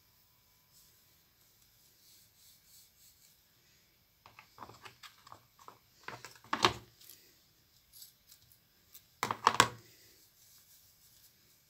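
Small rubber balloon being handled and pulled with sticky hands: a run of small crackling clicks about four seconds in, then two louder bursts of rubbery crackling and squeaking about three seconds apart.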